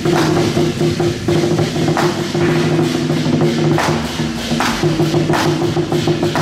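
Street procession music: drums and repeated cymbal crashes over held, steady tones.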